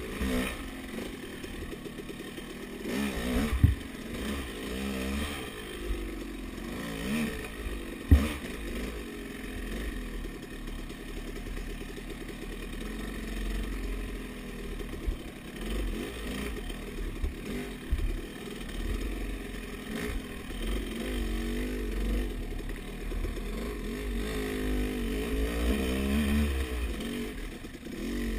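Off-road dirt bike engine at low speed, its pitch rising and falling again and again with the throttle. Two sharp knocks come in the first ten seconds.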